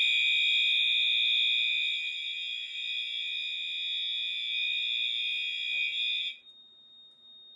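Fire alarm sounding a steady, really loud high-pitched tone, set off from a manual pull station. It cuts off abruptly about six seconds in as the alarm is silenced, leaving a faint thin high tone.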